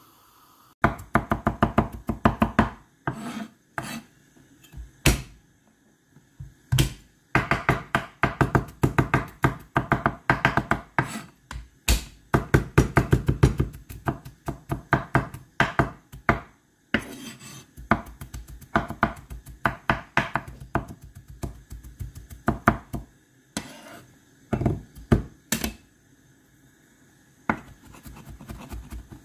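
Steel cleaver mincing garlic on a wooden chopping board: rapid knocks of the blade on the wood in runs of a few seconds, with short pauses between runs.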